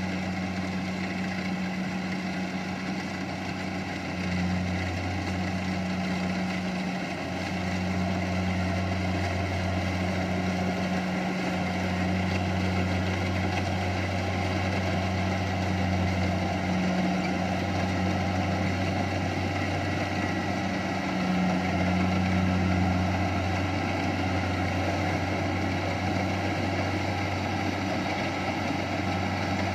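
Kubota rice harvester's engine running steadily, a low droning hum with a few brief dips in level.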